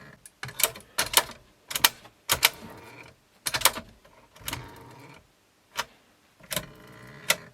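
Flimsy plastic cassette compartment door of a Sony TC-WE305 dual tape deck being opened and shut over and over: about ten sharp plastic clicks and clacks with creaking between them. The owner suspects the door's damper is behind the creak.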